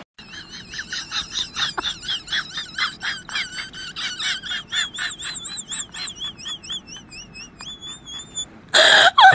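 A dog crunching cereal in quick chews, about four a second and slowing, with a high warbling whistle-like tone over them. Near the end the tone flattens into short glides, and then there is a sudden loud burst.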